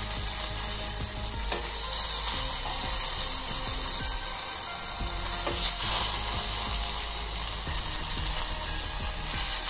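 Steady sizzle and crackle of jalebis frying in hot oil, with a couple of light knocks from the tongs.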